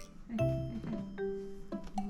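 Light background music: a sequence of plucked, pitched notes over a bass line.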